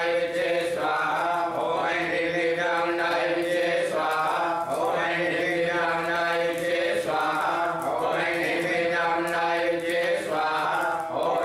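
Male voices chanting Vedic Sanskrit mantras for a fire offering. It is a steady, near-monotone recitation in long phrases with brief breaks between them.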